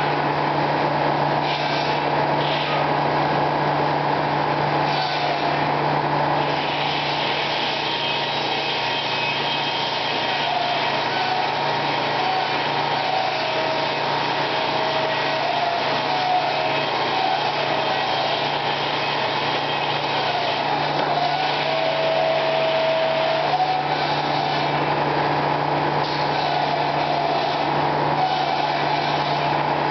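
Circular sawmill running: the large headsaw and its machinery give a steady low hum under a higher whine that wavers and steps in pitch in the middle stretch as the blade works through timber.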